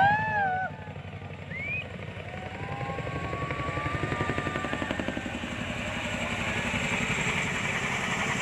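Boeing CH-47 Chinook tandem-rotor helicopter flying low past. Its rotors thud in a fast, steady beat that grows louder toward the end. A few brief rising-and-falling calls sound over it in the first two seconds.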